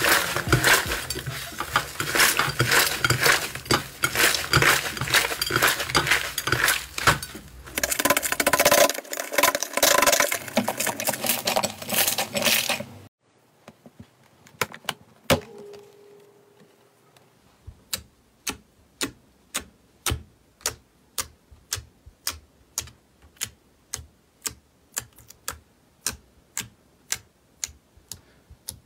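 Hands squeezing and kneading a crunchy green slime: dense, fast crackling. After a sudden cut about halfway in, a finger poking into slime in the compartments of a plastic palette box, a sharp pop with each poke, about two a second.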